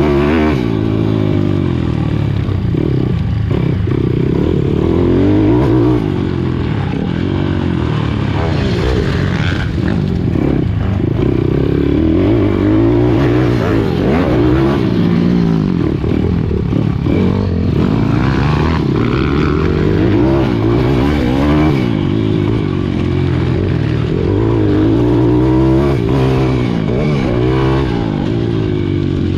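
Pit bike's single-cylinder four-stroke engine heard close up from onboard, revving hard and easing off again and again as the bike is raced around a dirt motocross track, its pitch rising and falling every few seconds.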